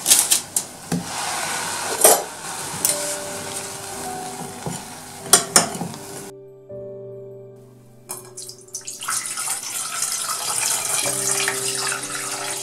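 Syrup sloshing in an enamel pot as cookies are pushed under with a fork, with a few sharp clinks of the fork against the pot. About eight seconds in, water pours in a steady stream into an empty enamel pot. Background music with sustained notes plays throughout.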